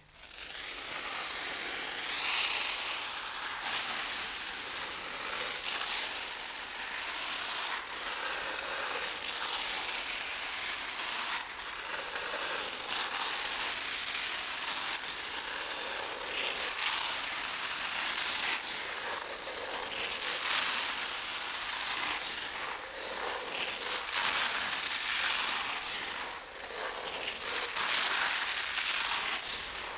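A stream of rice grains pouring from a swinging pendulum cone onto sheets of rice paper: a continuous dry, crackling patter that rises and falls in level, mixed with the rustle and crinkle of the paper being handled.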